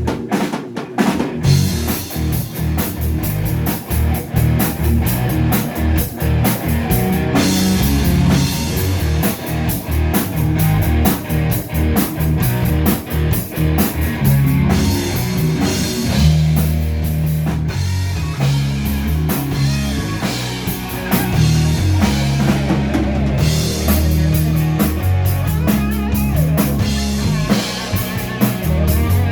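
Live rock band playing with drum kit and guitar, loud and driving, with strong low bass notes.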